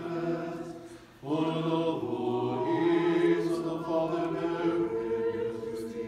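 Orthodox liturgical chant sung a cappella: voices holding long sung notes, breaking off briefly about a second in, then resuming.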